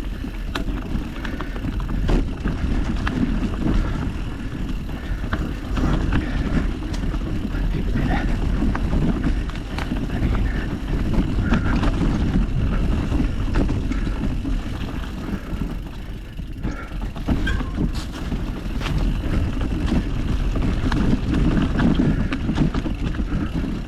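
Mountain bike riding over a dirt trail, heard from a GoPro on the bike or rider: steady tyre rumble and wind on the microphone, with frequent rattles and knocks from the bike over roots and rocks.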